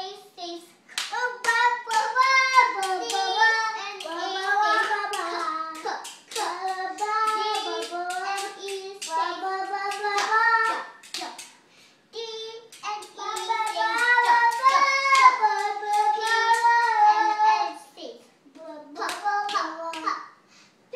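A young child singing a song in a high voice, in phrases with two short breaks, one about halfway through and one near the end, with hand claps among the notes.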